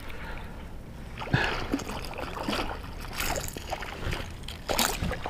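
Water splashing and sloshing in several short bursts as a small bass is landed and released back into the pond.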